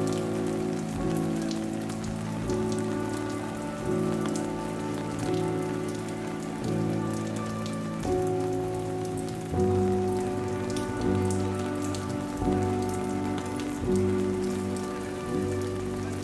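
Rain falling, with scattered drips, under slow background music: sustained chords that change about every second and a half, each swelling in and fading.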